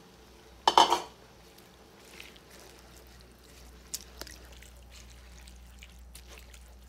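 A wooden spatula pushes a bundle of dry glass noodles down into boiling broth in a pan: a short, loud splashy swish a little under a second in, then quieter liquid sounds with a few light knocks of the spatula.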